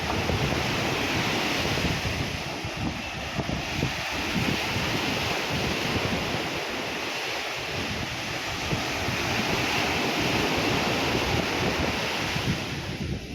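Sea surf breaking and washing ashore, its hiss swelling and easing every few seconds, with wind buffeting the microphone as a low rumble.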